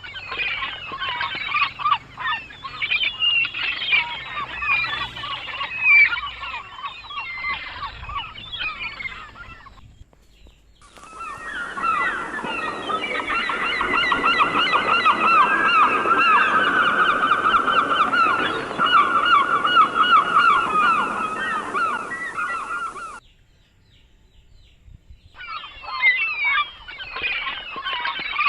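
A dense chorus of many birds calling over one another. It breaks off briefly about ten seconds in, returns as a thicker, more even mass of calls, drops to near silence for a couple of seconds near the end, then resumes.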